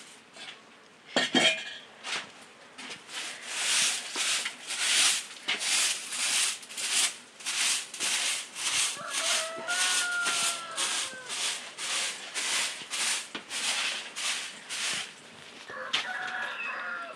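A knock, then rhythmic scraping strokes, about two a second, with a chicken clucking now and then.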